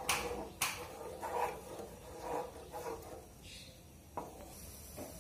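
Wooden spatula stirring and scraping a thin sugar-and-chilli syrup around a non-stick pan, about five swishing strokes, then two light taps near the end.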